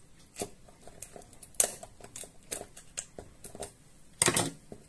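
Kitchen scissors snipping through the shell of a king crab leg: a run of separate sharp crunching snips, with the loudest cluster about four seconds in.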